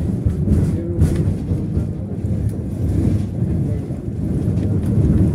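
BKM 60102 tram in motion, heard from inside: a loud, steady low rumble of its running gear on the rails, with a few faint knocks.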